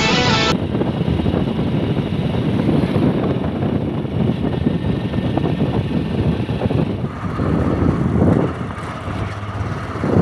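Motorcycle riding along a road: wind buffeting the microphone over the engine and road noise. A strummed guitar track cuts off about half a second in.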